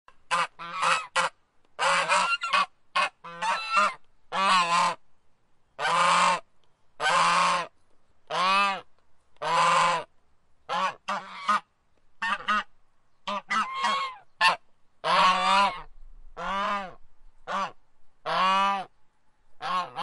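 Goose honking over and over: a long run of loud calls, some short and clipped, some drawn out to about half a second, at an irregular pace with brief gaps between them.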